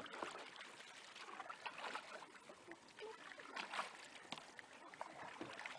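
Faint splashing and trickling of water as a canoe is paddled across a lake, with irregular soft strokes of the paddle in the water.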